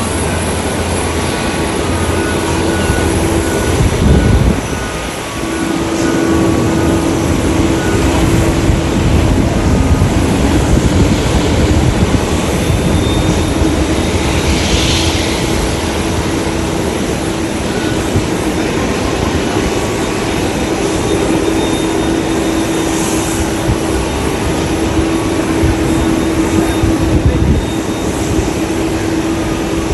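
Airbus A330-300 airliner's jet engines running, a loud steady noise with a constant hum tone through it and a brief dip about five seconds in.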